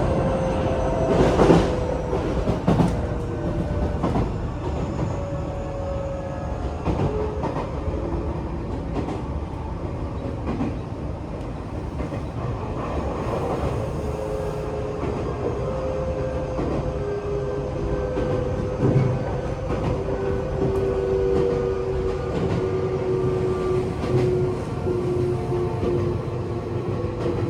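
Tokyo Metro 8000 series electric train running: a steady rumble with wheel clicks over rail joints, and a motor and gear hum that slowly falls in pitch as the train slows.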